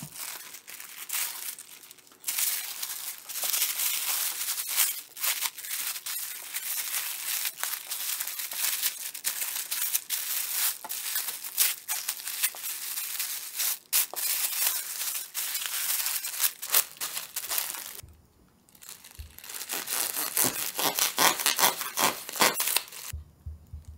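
Wrapping sheet crinkling and rustling as a thick sandwich is folded and pressed tightly inside it. After a short pause near the end, more crinkling as a knife cuts through the wrapped sandwich.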